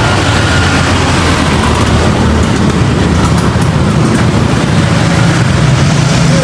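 Steady noise of motorbike and scooter traffic passing close by on a busy street.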